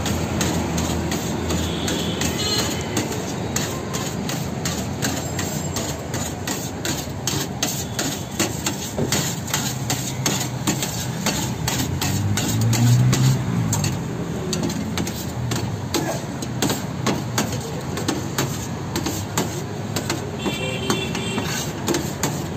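Steel cleaver chopping chicken shawarma meat and vegetables on a steel tray: fast, irregular knocks. A low hum swells and fades about halfway through.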